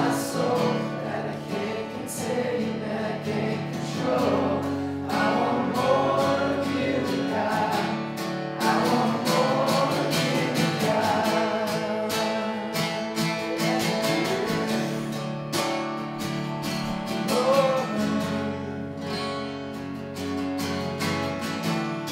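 Acoustic guitar accompanying singing of a worship song.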